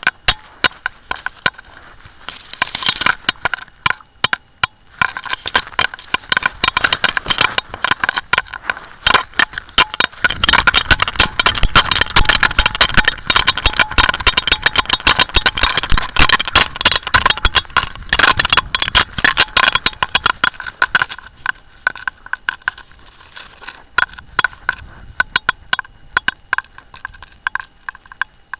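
Handling noise from a camera worn by a running Jack Russell terrier: dense crackling and rattling as the camera knocks and rubs against the dog and its harness. A low rumble joins from about ten seconds in and eases off about ten seconds later.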